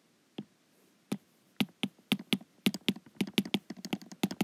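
Stylus tip tapping and clicking on a tablet's glass screen while handwriting letters: a few scattered clicks at first, then a quick run of clicks, several a second, from about a second and a half in.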